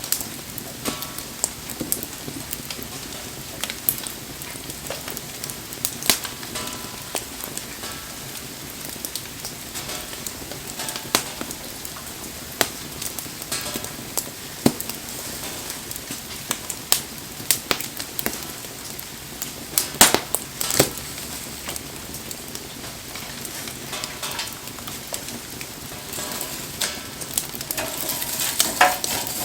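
Wood bonfire burning in the rain: a steady sizzling hiss with frequent sharp crackles and pops, a cluster of louder pops about two-thirds of the way through.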